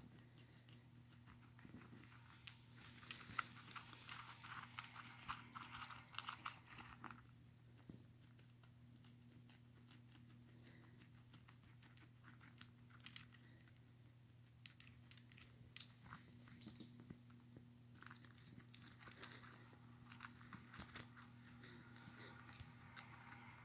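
Guinea pig chewing and crunching food close up: quick runs of small crisp clicks, busiest a few seconds in and again near the end.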